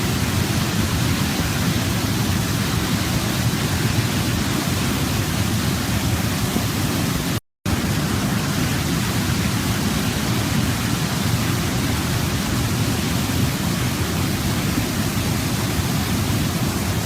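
Waterfall, its water rushing steadily. The sound cuts out completely for a split second about seven and a half seconds in.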